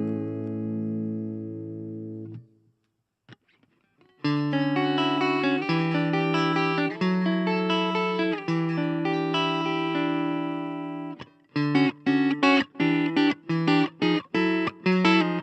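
Suhr Classic Pro electric guitar played clean through a Blackstar Fly 3 mini amp. A chord rings out and fades, then after a pause of about two seconds come sustained chords. Over the last few seconds the playing turns to short, choppy chord stabs, about two a second.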